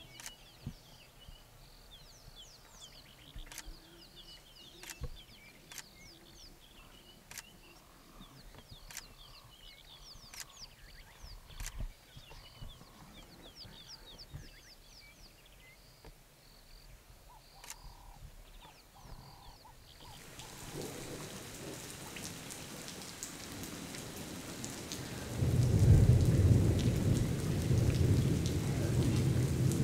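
Faint bird chirps and scattered sharp clicks over quiet bush ambience. About twenty seconds in, rain starts to fall. A few seconds later a loud, rolling thunder rumble breaks in over the heavy rain.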